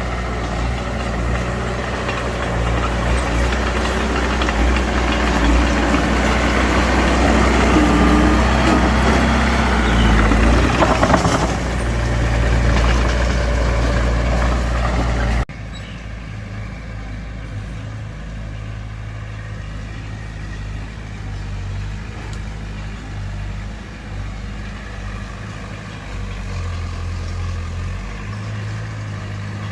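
Diesel engine of heavy earthmoving machinery running, loud and working hard through the first half. About halfway the sound cuts off abruptly to a quieter, steadier engine running.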